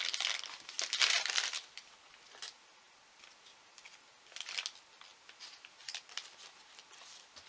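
Clear plastic bag crinkling as a small toy figure is pulled out of it and handled. The rustling is loudest for the first second and a half, then comes in short scattered crinkles.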